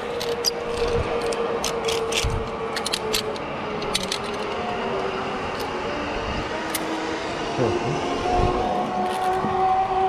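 Zipline trolley pulleys running along the steel cable: a steady whirring hum that sinks slightly in pitch, with a second, higher hum joining near the end. A few sharp clicks come in the first half.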